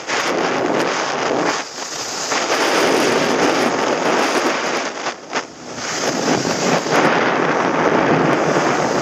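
Wind rushing over a body-worn action camera's microphone during a fast ski-slope descent, mixed with the scraping hiss of sliding on packed snow. The rush eases briefly twice and is loudest near the end.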